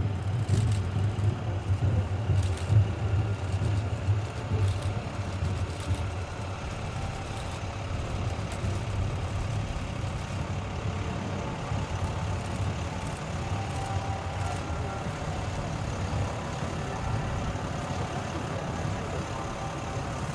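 Military fighter jets' engines running on the runway: a steady rumble with a faint whine, louder in the first few seconds and then easing to an even level.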